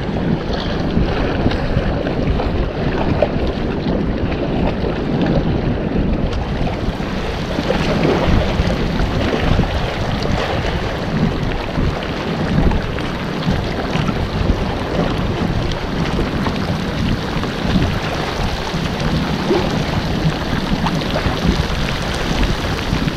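Wind buffeting the microphone over sloshing sea water. About six seconds in, a fuller, higher hiss joins as heavy rain pelts the sea surface.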